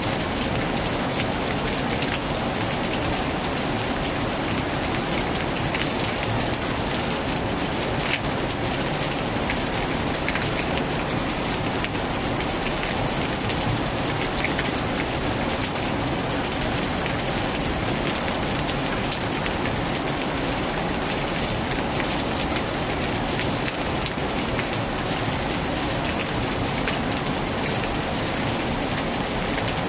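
Heavy rain falling steadily on a tin roof, an even hiss with scattered drop ticks.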